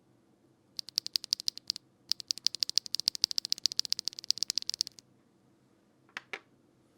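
Typing on a Neo65 Cu mechanical keyboard fitted with HMX Hydra tactile switches: a quick run of keystrokes about a second in, a short pause, then about three seconds of fast, even typing, and two last keystrokes near the end.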